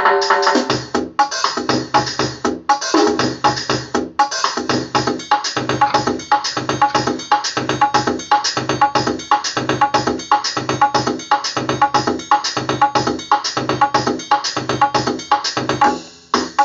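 Background music with a steady electronic drum-machine beat and synthesizer, briefly dropping away near the end.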